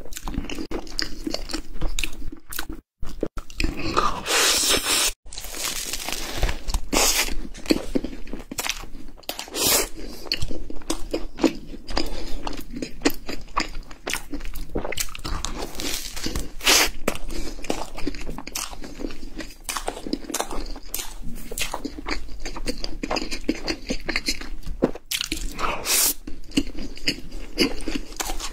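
Close-miked eating of crisp pastries: sharp crunching bites into flaky pie crust and crusty cream-puff shells, with chewing in between. The sound drops out briefly twice near the start, at cuts between clips.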